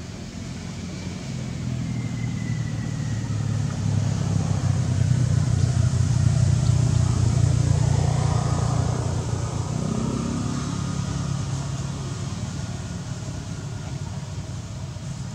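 A motor vehicle's engine passing by: a low hum that swells over several seconds and then fades away.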